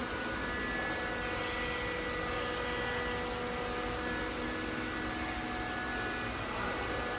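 Steady hum and hiss of factory-hall background noise, with a few faint steady whining tones that fade in and out.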